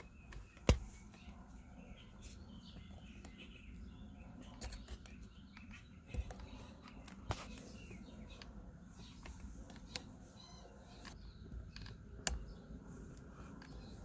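Scattered small clicks and taps of a small flathead screwdriver working against plastic connector parts while prying up the yellow locking tabs on airbag module connectors, the sharpest click about a second in. Birds chirp faintly in the background.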